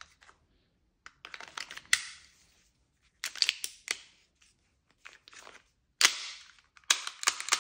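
Clicks and clacks from handling a Tokyo Marui M9A1 gas blowback airsoft pistol, coming in five short bursts.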